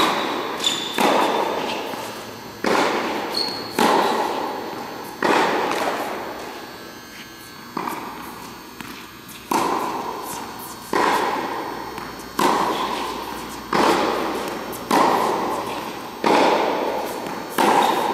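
Tennis ball being struck by racquets and bouncing on an indoor hard court in a steady groundstroke rally: sharp pops about every one to one and a half seconds, each ringing out in the hall's echo.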